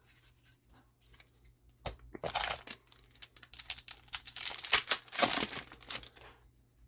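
Trading card booster pack wrapper crinkling and being torn open, a dense run of crackling starting about two seconds in and stopping shortly before the end.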